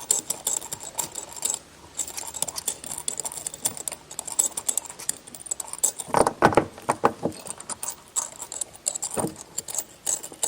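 Small metal hardware clicking and rattling as an aftermarket hood latch, washer and nut are handled and fitted by hand, with a cluster of louder knocks about six seconds in and another near the end.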